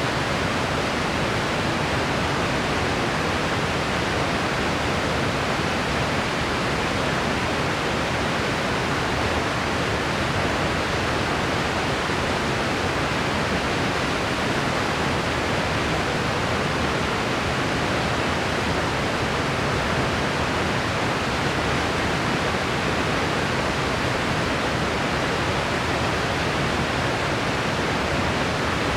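Steady white-noise track: an even, unchanging hiss that thins out in the highest treble.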